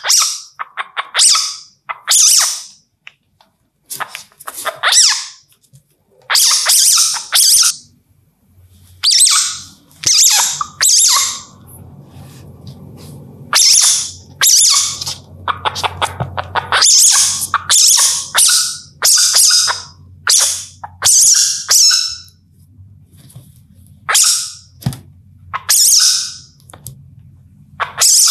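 Asian palm civet giving repeated short, harsh, high-pitched screeching calls in irregular runs. A low steady hum sits beneath the calls through the middle stretch.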